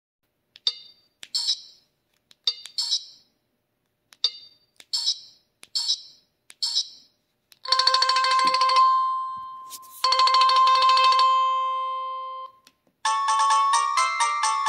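Samsung SPH-A660 flip phone playing ringtones one after another. First comes a string of short high chirps, then two longer electronic rings, each a steady tone that fades away. Near the end a busier multi-note melody starts.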